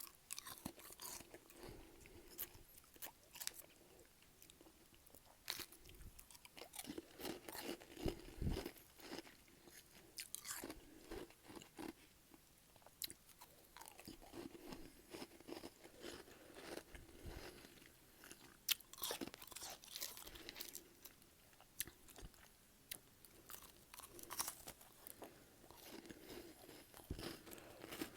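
Close-up crunching and chewing of freezer frost, a mixture of humidifier frost and regular freezer frost, with irregular crisp crunches throughout.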